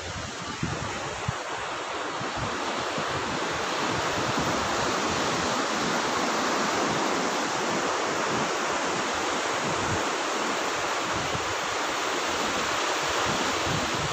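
Sea surf breaking and washing up the sand, a steady rushing hiss that swells a little a few seconds in, with wind buffeting the microphone.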